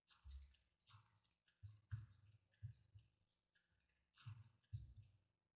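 Faint, irregular clicks of a computer mouse and keyboard, about seven over a few seconds, against near silence.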